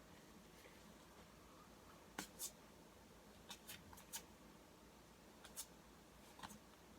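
Near silence with a scattering of faint, short clicks, typical of tarot cards being handled and flipped.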